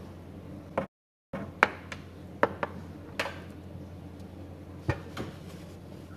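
Handling noise from cables and a plug being worked at a desk-mounted power strip: about six sharp knocks and clicks, irregularly spaced, over a steady low hum. The sound cuts out completely for a moment about a second in.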